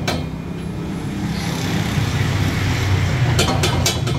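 Gas welding torch flame running steadily while welding an exhaust straight pipe: a low rumble with a hiss that swells in the middle.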